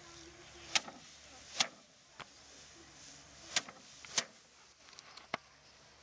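Sheaves of rice stalks beaten against a wooden threshing table by hand, about six sharp whacks at irregular intervals, knocking the grains loose from the stalks.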